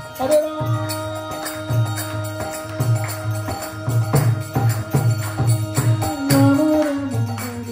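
Devotional kirtan music with no singing: a harmonium holds steady chord notes while a mridanga drum keeps a beat of low strokes, two to three a second, with sharp clapping or cymbal hits on the beats.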